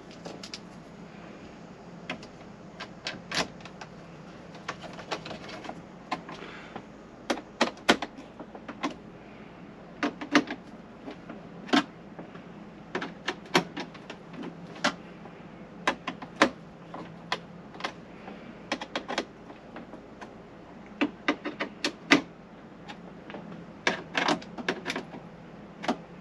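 Irregular sharp clicks and taps, singly and in quick clusters, from hands and tools working on the head unit's screws and the plastic dashboard facia, over a steady low hum.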